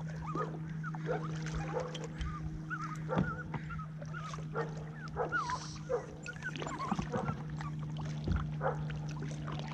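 A dog whining over and over in short, wavering whimpers, with a few sharp knocks and a steady low hum underneath.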